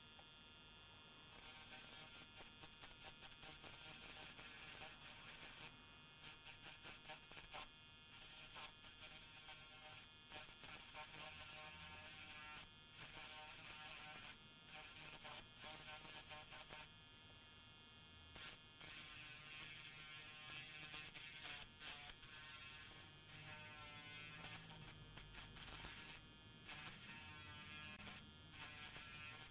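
Battery-operated grinding pen whirring faintly as its tip grinds into the NEC chip's package to expose a pin broken off inside. It starts about a second in and runs in many short bursts with brief pauses.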